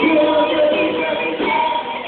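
Live band playing, with a voice singing over electric guitar and drums.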